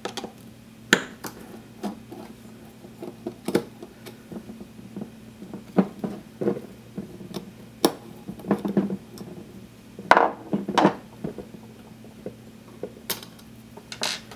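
Irregular small metallic clicks and taps as a screwdriver works the screws out of the USB bridge board's metal bracket on a bare hard drive, with the loosened parts handled between turns.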